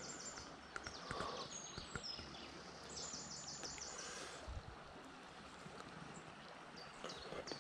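Faint steady flow of a small shallow burn over gravel, with a bird singing a quick run of high repeated notes about three seconds in.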